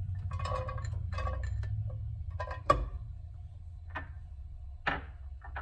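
Chopped red onion tipped from a small glass bowl into a nonstick frying pan, with a sharp clink about halfway through and two fainter knocks near the end, over a steady low hum.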